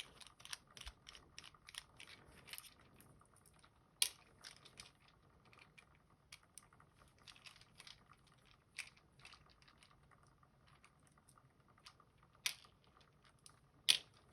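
Faint, irregular small clicks and scrapes of metal lock parts being handled while the cam is taken off a Robur safety deposit box lock. There are a few sharper clicks, one about four seconds in and two near the end.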